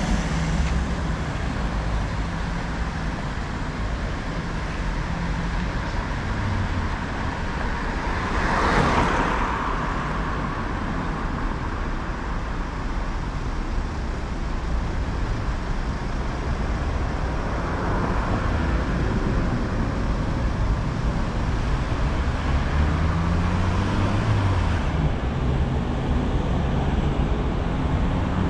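Road traffic as heard from a bicycle: cars and larger vehicles running past over a steady road rumble. One vehicle passes loudly about nine seconds in, and another engine rises in pitch near the end.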